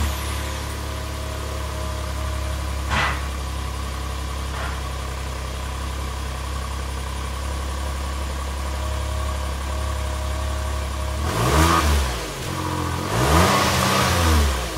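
Suzuki Jimny JB64's 660 cc turbocharged three-cylinder engine idling steadily through the stock muffler, then revved twice near the end, each rev rising and falling back to idle.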